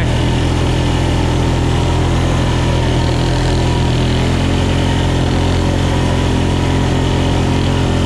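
Can-Am ATV engine running at a steady, unchanging speed.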